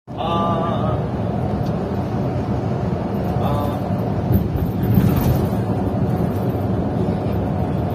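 Steady low rumble of a coach bus's engine and tyres heard from inside the driver's cab while it drives along. Two short high-pitched tones sound over it, one just after the start and one about three and a half seconds in.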